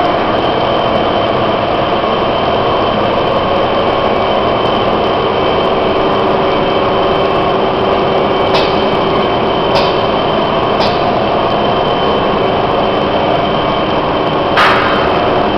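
Wood pellet production line running: a loud, steady din of electric motors and fans with many steady hums and whines layered together. A few sharp clicks come in the second half, and a louder knock comes near the end.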